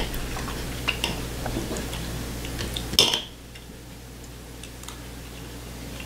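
Steak knife and fork clicking and scraping against a plate while cutting a steak, with a few light clinks and one sharper clink about three seconds in.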